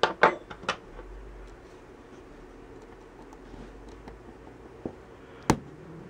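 Small hard clicks and taps of fingers and a pry tool handling the opened Galaxy S4's parts: a cluster of clicks in the first second, then one sharp click about a second before the end.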